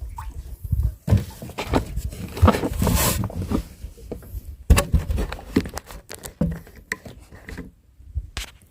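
Wet cast net being hauled in and handled: irregular rustling, patter and knocks, with a low rumble underneath.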